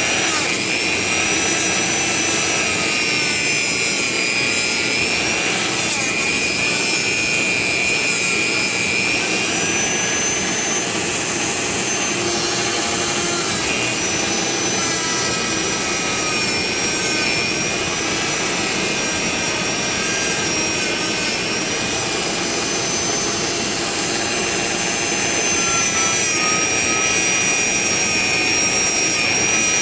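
Handheld Dremel rotary tool running at high speed, its polishing tip held with light pressure against a small revolver part: a steady high motor whine over a rubbing hiss, the pitch sagging slightly now and then as the tip bears on the metal.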